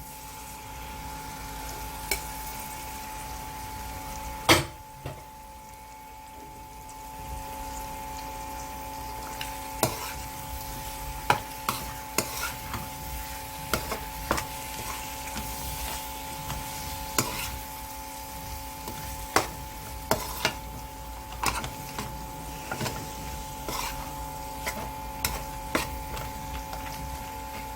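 Pork and curry frying in hot oil in a pot, sizzling steadily, while a spoon stirs it, scraping and clicking against the pot. There is one sharp knock about four and a half seconds in.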